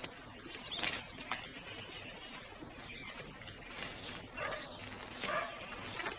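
Birds chirping: a few short, high calls about a second in and again near the end, over a faint steady background hiss.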